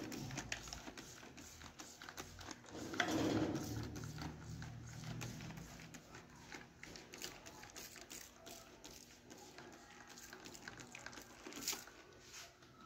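Hand trigger spray bottle squirting a homemade ammonia-and-detergent degreaser: many short, faint spritzes, a couple a second, with a louder muffled handling noise about three seconds in.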